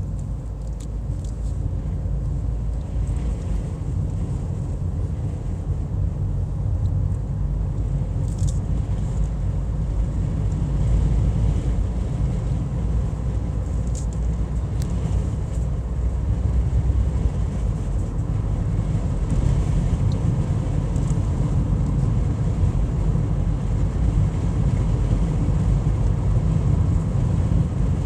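Steady low rumble of a car driving, with road and engine noise and no clear changes.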